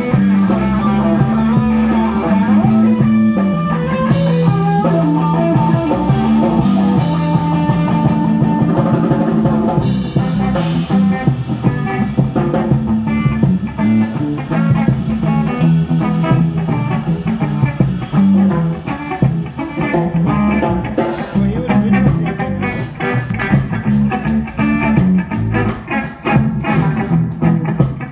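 A live band playing amplified music through PA speakers: electric guitar over a steady bass line and drum kit, the drumming growing busier in the second half.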